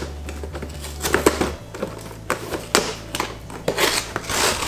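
Cardboard toy box being handled and pulled open: irregular clicks, taps and scrapes of the cardboard flaps and packaging.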